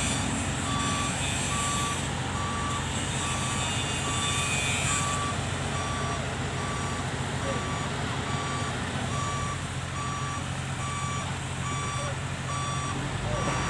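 Excavator travel alarm beeping in an even series, a little under two beeps a second, over the steady running of the machine's diesel engine.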